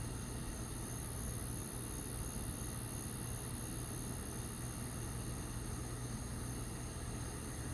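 Steady nighttime outdoor background: a constant low hum under a continuous high-pitched insect drone, with no distinct events.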